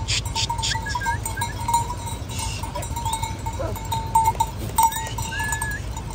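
A herd of goats on the move: bells tinkling steadily, with a few faint bleats and scattered clicks over a low steady rumble.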